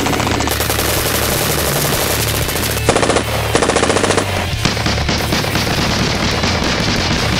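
Rapid automatic gunfire in long strings of shots, with a short break and separate bursts about three to four seconds in.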